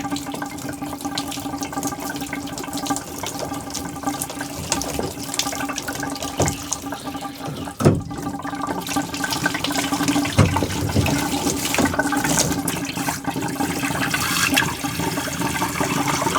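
Water running steadily out of a freshly cut 1/2-inch water supply pipe as the line drains, with a sharp knock about eight seconds in.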